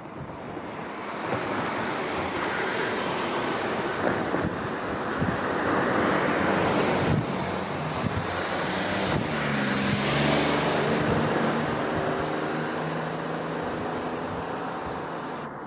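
Road traffic passing: a steady rushing noise that swells and eases over several seconds, with a low engine hum rising out of it about two-thirds of the way through.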